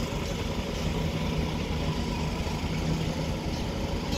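Heavy construction-machinery engine running steadily at idle, a constant low hum with no change in speed.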